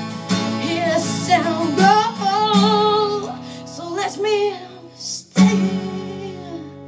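A voice singing long, wavering notes without clear words over a strummed acoustic guitar, the closing phrase of a song. About five seconds in, a strong strum rings out under the last held note.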